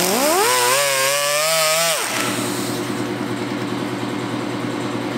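Handheld rotary grinder spinning a homemade emery-cloth flap wheel inside a hole of an engine spacer plate, cleaning out the hole. The whine rises in pitch as the tool spins up, wavers while it works, and cuts off suddenly about two seconds in, leaving a steady background hum.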